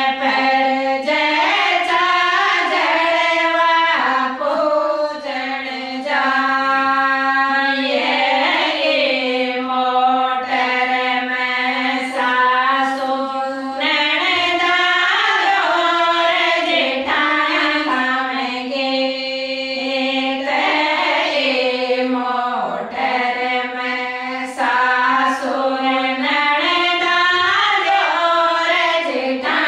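Women's voices singing a Rajasthani folk song of the jalwa (well-worship) rite as a group, in long held, gliding notes phrase after phrase.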